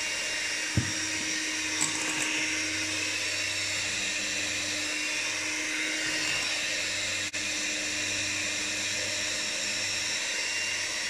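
Electric hand mixer (a FIRST 'Mini') running steadily at one speed, its beaters whisking orange cake batter in a glass bowl. A single knock sounds about a second in.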